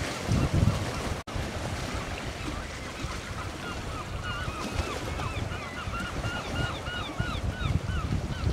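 Wind buffeting the microphone with a low rumble, while a bird calls in short, rapid, repeated notes, several a second, growing stronger from about the middle onward. The sound drops out briefly about a second in.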